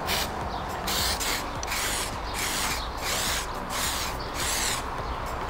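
Aerosol can of heat-resistant spray paint hissing in a series of short bursts, about two a second, as paint is sprayed on in passes.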